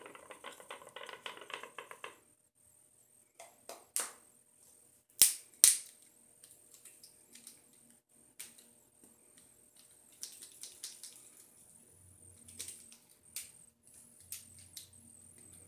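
A protein test swab scrubbed rapidly back and forth on a tiled counter, then sharp plastic clicks and snaps as the swab and its plastic tube are handled, the loudest two close together about five seconds in.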